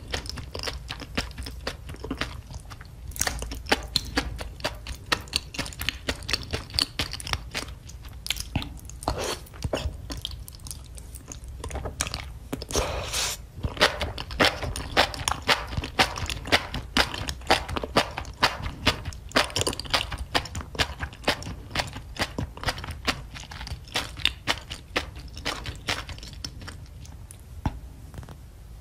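Close-miked wet chewing and mouth sounds of a person eating enoki mushrooms in spicy sauce. There is a longer slurp about 13 seconds in.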